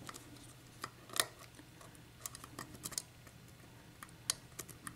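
Lock pick working the pin stacks of a Dorma mortice lock cylinder under tension during single-pin picking: faint, irregular small clicks and ticks as pins are lifted and set, the sharpest about a second in and another near four seconds.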